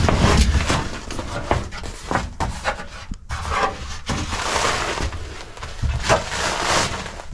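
A new rubber-backed trunk mat being unfolded and spread over the trunk floor by hand: irregular rustling and scuffing, with a few dull thumps as it flops down, the heaviest near the start.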